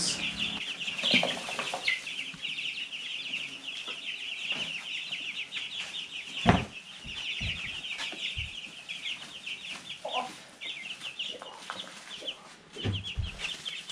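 A brooder full of two-week-old meat chicks peeping continuously, many short high chirps overlapping. A few knocks break in around the middle, the loudest about six seconds in.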